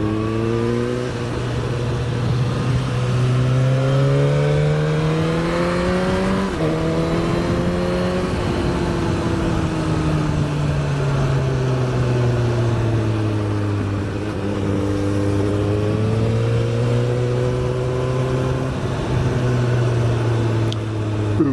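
Onboard sound of a 2018 Suzuki GSX-S1000's inline-four engine under way, with wind rush. The revs climb for about six seconds, ease down slowly, then rise a little again and fall away.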